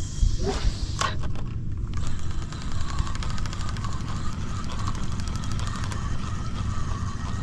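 Spinning reel being cranked to retrieve line: fast, even ticking with a light gear whine, over a steady low rumble, with a short burst of noise about a second in.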